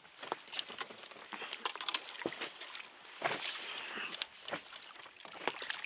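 Water lapping and splashing at the side of an inflatable boat, with a few short sharp splashes as a small bream is drawn into a landing net.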